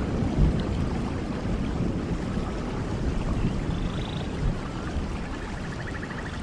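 Steady rainfall with a low rumbling underneath, and a few faint high chirps from about four seconds in.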